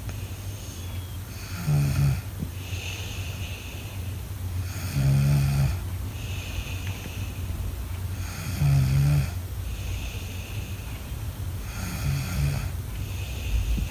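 A child snoring in sleep: four snores, about one every three and a half seconds, with softer hissing breaths between them, over a steady low hum.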